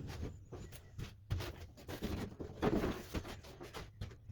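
Handling noises: irregular light knocks and rustling as objects are picked up and moved about.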